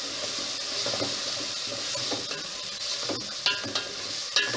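Diced carrots, onions and tomatoes sizzling in oil in a metal pot while a wooden spoon stirs and scrapes through them. Twice near the end the spoon knocks the pot, which rings briefly.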